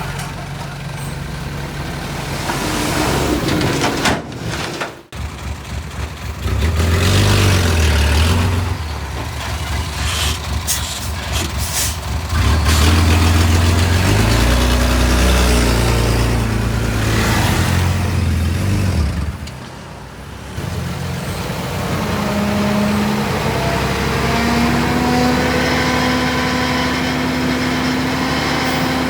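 Heavy diesel construction machinery running and revving under load. The sound breaks off abruptly twice, and near the end an engine's pitch climbs steadily as it speeds up.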